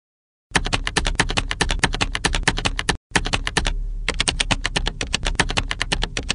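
Typing sound effect: rapid, even key clicks, about ten a second, starting about half a second in and breaking off briefly around three seconds.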